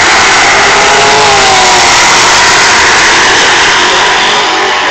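Nostalgia drag-racing car on a full-throttle run down the strip, a very loud engine note that eases off slightly near the end as the car gets farther away.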